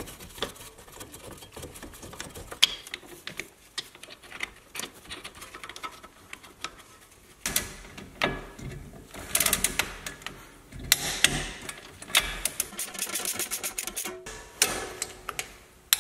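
Ratchet wrench clicking rapidly as bolts on a steering knuckle are run in and tightened; the clicking is light at first, then comes in louder bursts from about halfway through as the wrench is swung in strokes.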